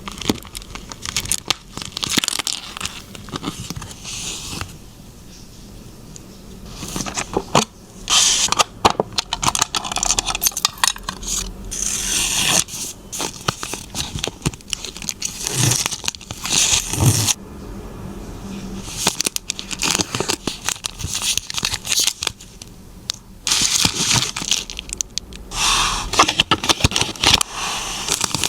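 Hands packing a photocard: plastic sleeves and wrapping crinkling and rustling, with tearing and scraping and many sharp clicks, in irregular bursts.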